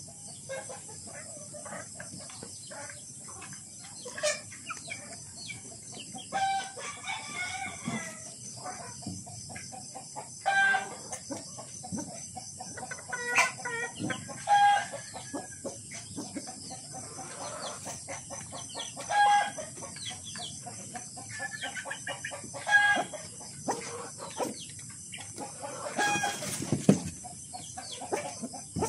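A flock of Kelso gamecocks and hens calling, with short repeated clucks scattered throughout and a rooster crowing now and then.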